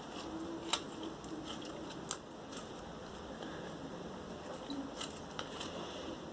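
Slime being kneaded and stretched by hand, giving faint sticky clicks and small pops at irregular moments.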